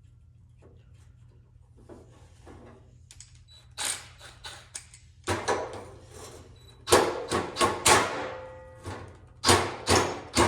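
Metal tools being handled: a run of knocks and clanks starting about two seconds in and growing louder, some with a short metallic ring.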